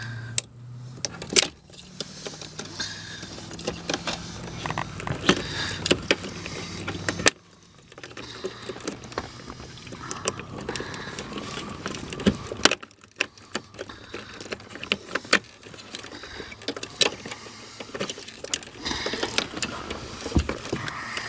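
Clicks and rattles of plastic wiring-harness connectors being released and unplugged, with the harness wires handled and shuffled behind a pickup's kick panel. A steady low hum runs underneath for the first seven seconds or so and then cuts off abruptly.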